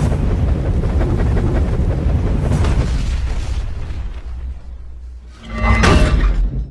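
Explosion-like sound effect: a loud rumbling boom that fades over about five seconds, then a second, shorter burst near the end that cuts off sharply.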